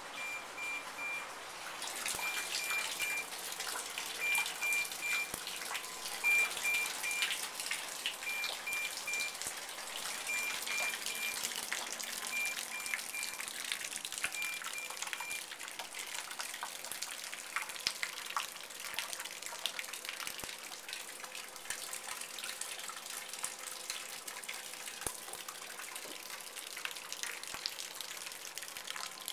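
Water leaking from the ceiling and pattering and trickling into a metal stockpot, a dense stream of drips. An electronic beep sounds about every two seconds and stops about halfway through.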